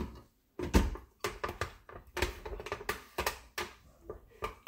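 A run of irregular clicks and knocks from a glass blender jar and its plastic lid being handled and set on the Oster blender's base, and from its push buttons; the motor is not yet running.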